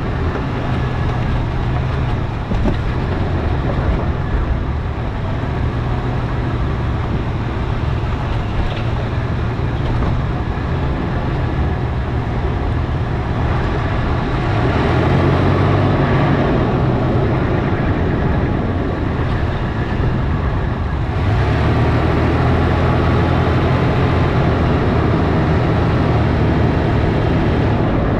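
Toyota FJ Cruiser's 4.0-litre V6 running under load on a rough dirt trail, heard from near the front right wheel: a steady engine hum under loud tyre and gravel noise. It gets louder about halfway through and again about three-quarters of the way through.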